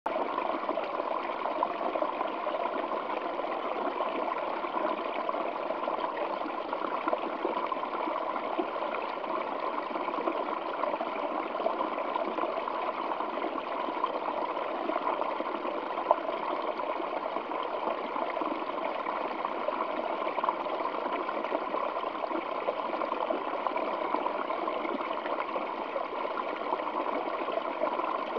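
Waterfall flowing over rocks: a steady, even splashing and rushing of water with no breaks.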